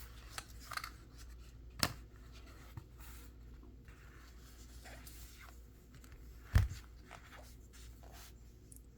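Faint handling sounds of a Victorinox Onefold Alox pocket knife: small clicks and rubbing, with one sharp click about two seconds in and a heavier knock about two thirds of the way through.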